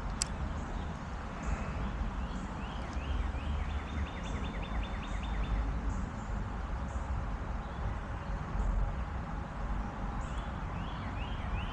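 Outdoor creekside ambience: a steady low rumble with no speech. Over it, a rapid trill of repeated short notes runs for about four seconds soon after the start and begins again near the end.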